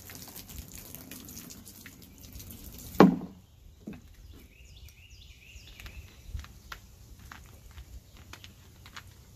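Water dripping and a thin plastic water bottle being handled, with scattered small clicks and crinkles and one loud thump about three seconds in.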